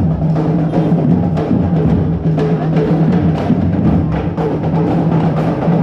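Music with a steady drum beat, about two beats a second, over a held low note.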